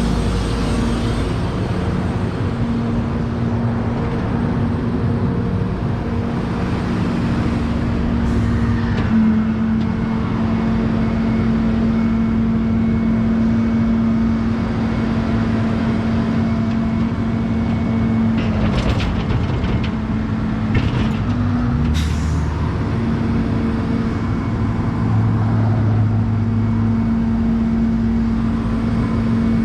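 A truck engine running steadily at idle, its pitch stepping up slightly about nine seconds in, with a few sharp clicks and knocks near two-thirds of the way through.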